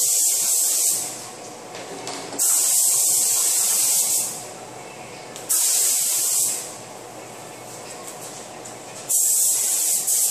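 Gravity-feed air spray gun hissing in four bursts of about one to two seconds each, as the trigger is pulled in passes to spray paint, with a fainter steady hiss between bursts.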